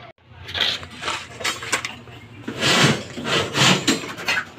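Shovel scraping and chopping into gravelly soil and rubble while a trench is dug, a quick run of rough scrapes and gritty strikes.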